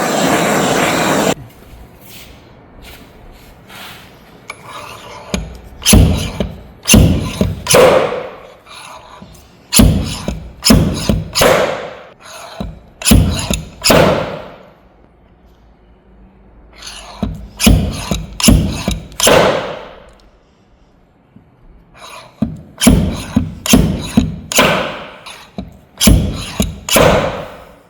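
Glue pull dent repair on a car's metal body panel: sharp knocks and pops, each with a short ringing tail from the panel, coming in four clusters of two to five strokes with pauses between. A loud rush of noise fills the first second.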